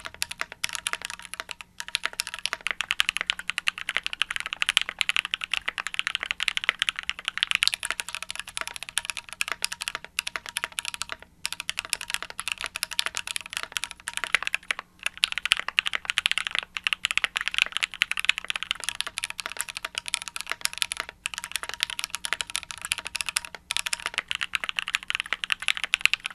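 Fast typing on a Keychron Q3 tenkeyless mechanical keyboard with Gateron G Pro Red linear switches and OSA PBT keycaps: a dense, steady clatter of keystrokes in long runs broken by a few brief pauses. It is a sound test comparing the board before and after an acoustic mod.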